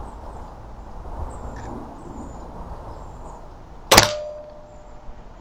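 A single shot from a Retay T20 PCP air rifle about four seconds in: a sharp crack followed by a brief ringing tone that fades out.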